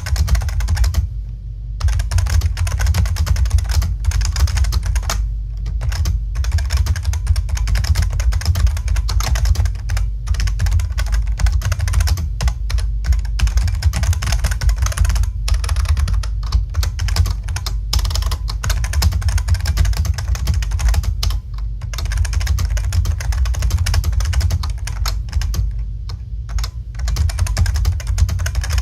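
Fast, continuous typing on a Codegen CG-101F keyboard with Futaba clicky switches, a dense run of sharp key clicks broken by a few brief pauses.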